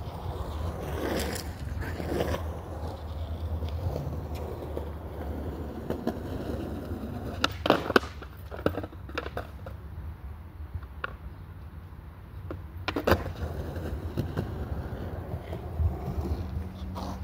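Skateboard wheels rolling with a steady rumble, with a quick cluster of sharp clacks of the board hitting the ground a little before halfway through and one more clack later on.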